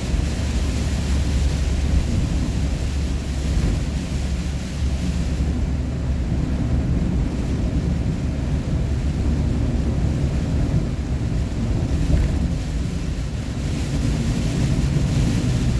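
Steady road rumble of a vehicle driving at highway speed, heard from inside the cabin: engine, tyre and wind noise. The higher hiss eases off about five seconds in and comes back up near the end.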